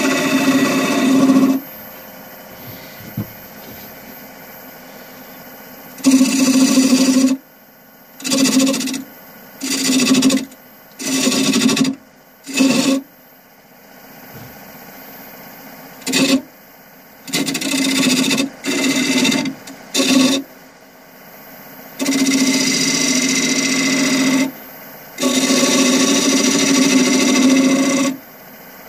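A wood lathe running with a bowl blank spinning, and a turning tool cutting into the wood in about a dozen loud bursts of one to three seconds. The lathe's quieter steady hum is heard between the cuts.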